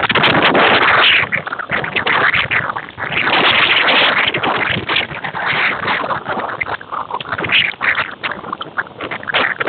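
Heavy rain with hail, a loud, dense clatter of countless impacts that swells and eases every second or two.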